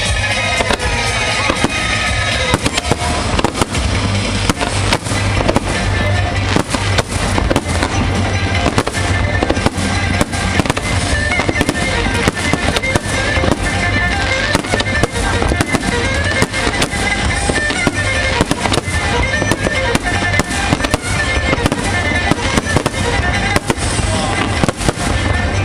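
Aerial fireworks display going off continuously: rapid, dense bangs and crackles, with falling whistles in the first couple of seconds, over music.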